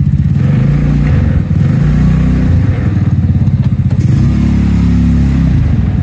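The go-kart's GY6 150cc four-stroke single-cylinder engine running, its revs rising and falling a couple of times.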